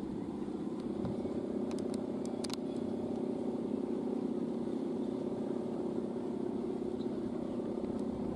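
Steady droning hum of Balinese kite hummers (guangan), the taut bow-and-ribbon noisemakers on kites flying overhead, several pitches sounding together and wavering slightly in the wind.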